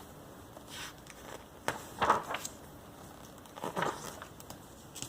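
Glossy magazine pages being handled and turned: a few short paper rustles, the loudest about two seconds in.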